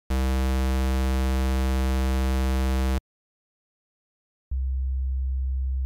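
A bright, buzzy synthesizer test tone, a single-cycle waveform rich in overtones, holds steady for about three seconds and stops abruptly. After a silence of about a second and a half, a low, pure sine-wave tone starts near the end.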